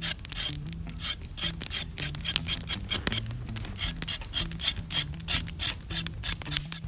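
A knife blade scraping the skin off a raw carrot in quick, repeated strokes, several a second.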